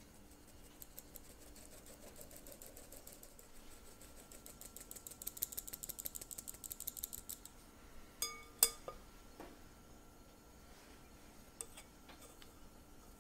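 Fine-mesh metal sieve shaken and tapped to sift flour into a glass bowl: a fast, even, light rattle of taps for several seconds. Then a few sharp clinks with a short ring as the sieve knocks against the glass bowl.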